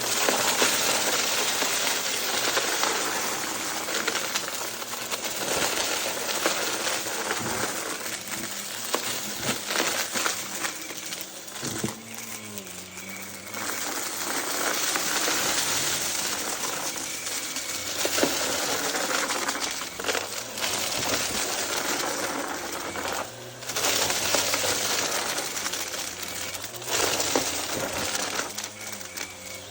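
Vacuum cleaner running and sucking up loose debris, a dense crackling rattle of particles through the nozzle that rises and falls in level as it works.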